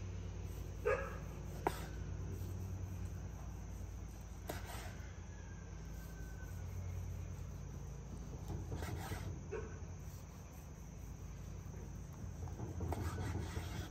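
A chef's knife slicing thin pieces off a whole smoked picanha on a bamboo cutting board, the blade tapping the board a few times. Under it, a steady faint insect drone and a low hum.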